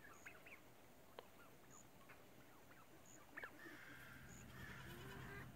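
Faint scattered short clucks and chirps from turkeys feeding, with a soft rasping call building about four seconds in.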